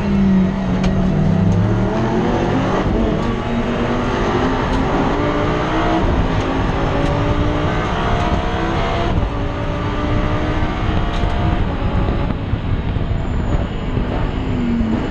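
Race car engine heard from inside the cockpit under racing load. The revs climb steadily through the middle, break at a gearchange about nine seconds in, and fall again near the end as the car slows.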